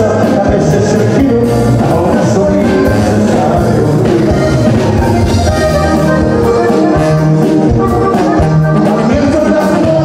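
Live norteño band playing an instrumental passage: a button accordion over a twelve-string bajo sexto and drums, loud and steady.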